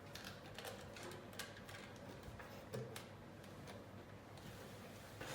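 Faint, irregular small clicks and taps from handling a phone-repair power cable and an iPhone motherboard, a few slightly sharper ones about a second in and about three seconds in.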